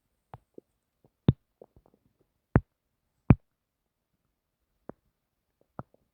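Short pops and clicks from a person's stomach, about seven in all, the three loudest coming between about one and three and a half seconds in.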